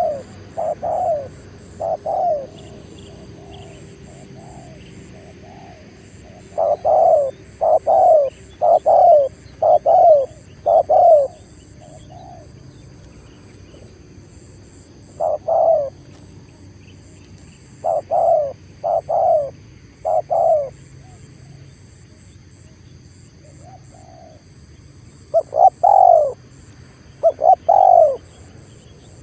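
Spotted dove (tekukur) cooing: short, loud coos repeated in phrases of three to six notes, with a pause of a few seconds between phrases.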